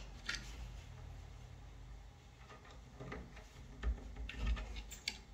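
A wooden door knocking and rattling softly against its frame as a cat paws and tugs at its edge from behind: faint scattered taps, with two soft thumps about four seconds in.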